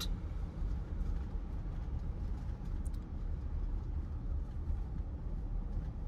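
Steady low road and engine rumble heard from inside a moving vehicle.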